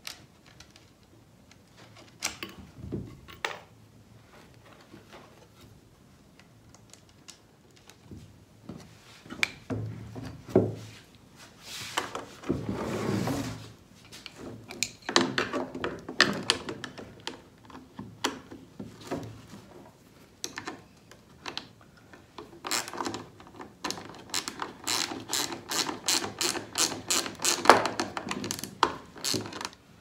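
Hand-tool work on a metal blade guard: scattered clinks and knocks as bolts are fastened with a screwdriver and wrench and the guard is handled, with a quick run of clicks near the end.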